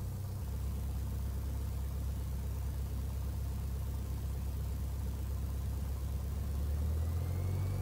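Piper Warrior's four-cylinder Lycoming engine at full power during the takeoff roll: a steady low drone, with a faint tone rising in pitch near the end as the plane gathers speed.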